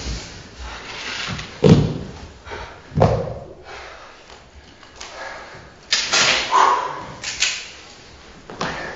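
A stage fight: loud thuds with a man's pained grunts as he is struck and doubles over. The two loudest come about a second apart near the start, and more thuds follow about six to seven seconds in.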